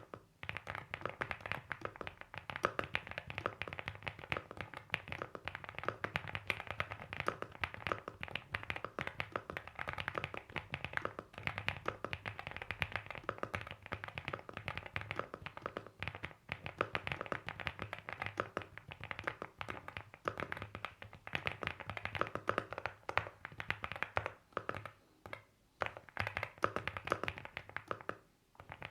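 Fast continuous typing on a mechanical keyboard with pre-lubed Wuque Studio Morandi 50g linear switches on an FR4 plate and ABS keycaps, stock and unmodded: a steady stream of soft key clacks, with brief pauses now and then.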